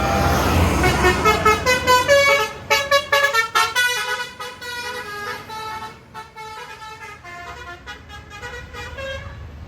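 Basuri 'telolet' multi-tone bus horn playing a quick tune of short notes that step up and down in pitch, over the rumble of a bus engine. The tune is loudest for the first few seconds, then goes on more quietly.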